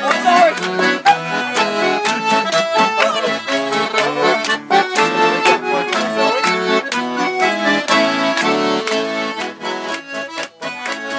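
Piano accordion playing a traditional folk tune, with an acoustic guitar strummed alongside.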